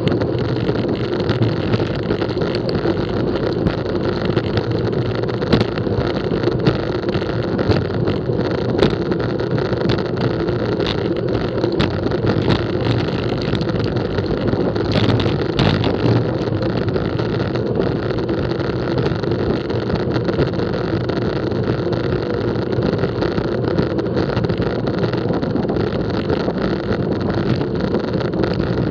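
Steady wind and road noise on a bicycle-mounted action camera riding along with a group of road cyclists, with scattered faint clicks.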